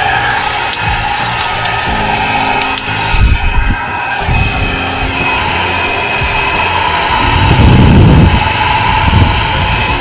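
Revlon RVDR5005 1875 W ionic travel hair dryer running with a steady blowing hum. Heavy low rumble comes in twice, about three seconds in and again near eight seconds, as the dryer is turned and its airflow strikes the microphone.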